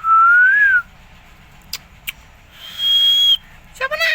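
Indian green parrot (rose-ringed parakeet) whistling: a short clear whistle that rises and dips, then about two seconds later a longer, steady, higher whistle, and near the end a brief harsh rising call.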